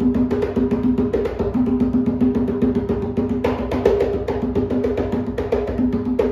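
A small 60 cm goat-skin atabaque played by hand in a fast, continuous rhythm, the barra-vento, with ringing open tones and a few sharper slaps standing out, one about halfway through and one near the end.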